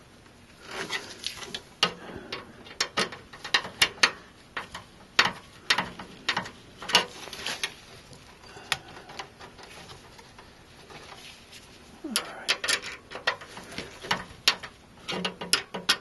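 Irregular sharp metallic clicks and taps from a screwdriver working a screw into a graphics card's metal mounting bracket in a steel PC case. They come in two spells with a quiet gap of a few seconds in the middle.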